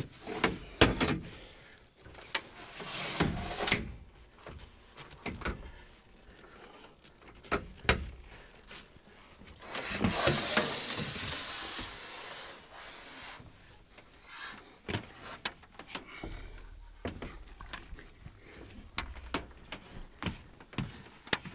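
Scattered knocks, clicks and scrapes of a solar panel being lowered and set onto the roof racking. A longer rushing noise comes about ten seconds in.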